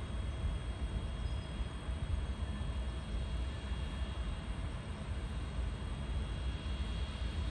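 Steady ambient noise of a freight yard with trains standing: a low rumble with an even hiss and a faint, steady high whine, and no train passing.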